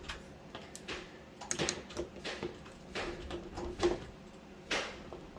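Irregular clicks and knocks of metal door-handle hardware being handled and fitted on a door, with a faint low hum for about a second around three seconds in.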